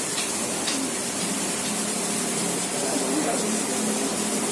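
Steady hiss in the background, with a faint voice murmuring a prayer underneath, most noticeable about halfway through.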